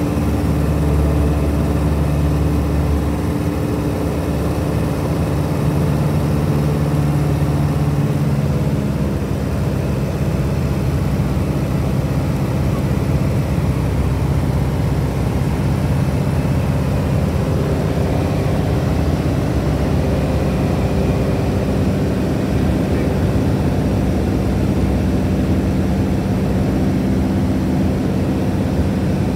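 Piper Super Cub's air-cooled four-cylinder engine and propeller droning steadily in cruise, heard from inside the cabin. The engine note shifts slightly lower about nine seconds in.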